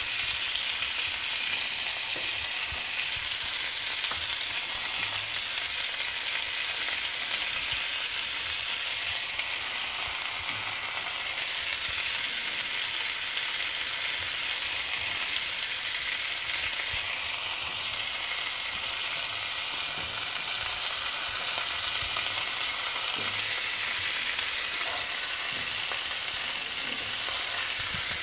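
Pork ribs and onion wedges frying on a hot flat iron griddle: a steady sizzle.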